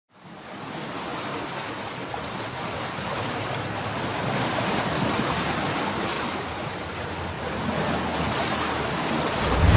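Steady rushing noise, like surf or wind, fading in at the start and holding steady.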